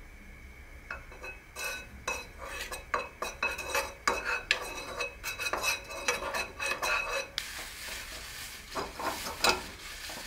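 Wooden spatula scraping and tapping around a ceramic-coated frying pan as butter is spread and melted over the burner, with some sizzling. About seven seconds in, it gives way to a paper towel rubbing over the pan's surface, with a few knocks.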